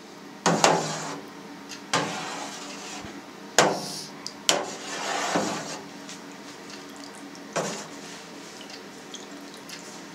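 A long spoon stirring milk in a stainless steel cheese vat, knocking sharply against the metal sides about five times, with soft swishes of liquid between. The milk is being stirred to mix in calcium chloride.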